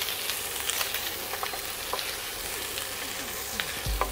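Ravioli sizzling in melted butter and sage in a nonstick frying pan, stirred with a wooden spatula, with scattered small scraping clicks and a low bump near the end.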